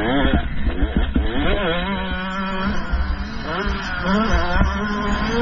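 Two-stroke 125 cc motocross bike engine (GasGas 125) being ridden hard, its pitch sweeping up sharply and dropping back three or four times as the throttle is worked and gears change.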